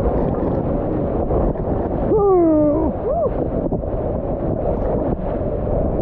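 Whitewater rapids rushing and splashing around an inflatable raft as it rides through the waves, with wind buffeting the action-camera microphone. About two seconds in a person lets out a short whoop.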